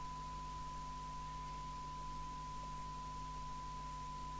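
A President Johnson 2 CB radio's loudspeaker giving out one steady, unwavering test tone, the audio it recovers from a strong signal-generator test signal fed into it. A faint low hum sits underneath.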